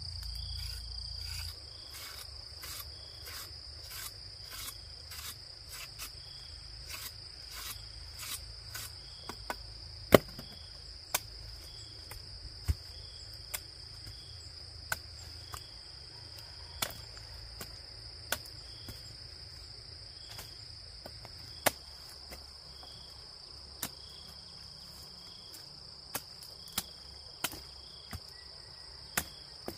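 Insects trilling steadily in a high, even tone, with another short chirp repeating about once a second. Light ticks come in a fast run for the first several seconds, then sharp knocks at irregular intervals, the loudest about ten seconds in.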